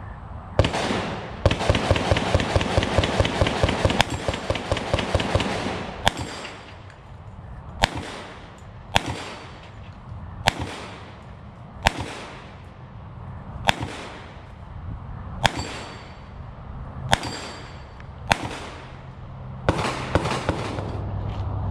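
Gunshots: a long rapid string of shots, then single sharp shots about a second or so apart, each with a ringing tail, and a quick burst again near the end.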